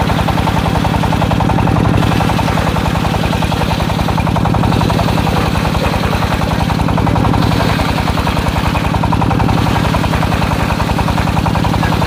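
Diesel-engine-driven circular sawmill blade ripping lengthwise through a log. The engine runs steadily under load, with the rasp of the blade cutting wood throughout.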